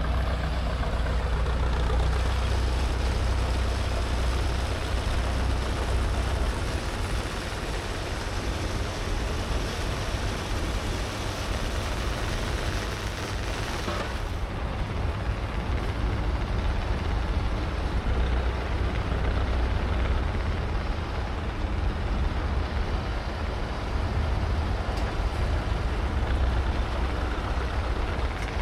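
A large machine running steadily: a deep rumble under a broad rushing noise.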